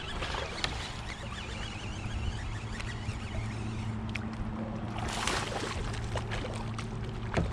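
Water lapping and trickling around a fishing kayak, with a low steady hum underneath and a brief splash about five seconds in.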